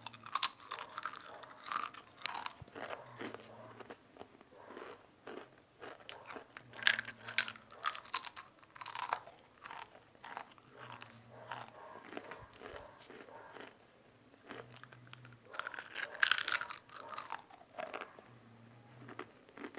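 Someone biting and chewing Pringles potato crisps close to the microphone, with irregular sharp crunches and quieter chewing between them.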